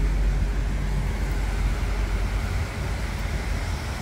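Steady low rumble of road vehicles, with an even hiss above it.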